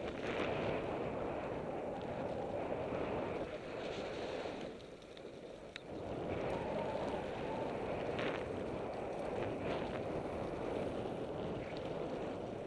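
Wind rushing over the microphone and the tyres of a mountain bike rumbling on a rough gravel road during a downhill descent. The noise eases off briefly about halfway, then returns as strong as before.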